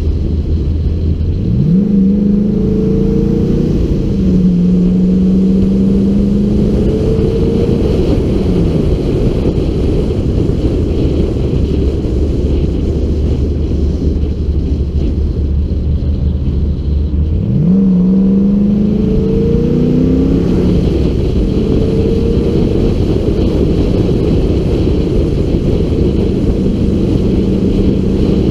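LS1 V8 engine of a V8-swapped FD Mazda RX-7 accelerating at moderate revs, its pitch rising twice and easing back off between, under heavy wind rush on the car-mounted microphone.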